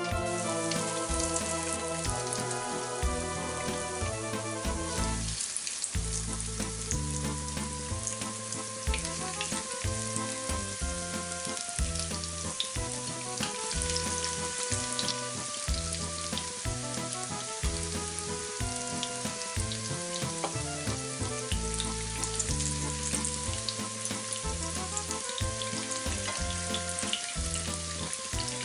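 Breaded cauliflower florets frying in a pan of hot oil: a steady sizzle with frequent small crackles and pops, over background music.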